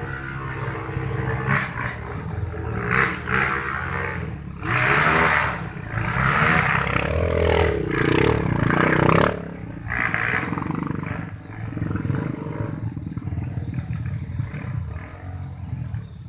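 Vehicle engine revving hard under load on a steep uphill climb, surging louder in repeated bursts.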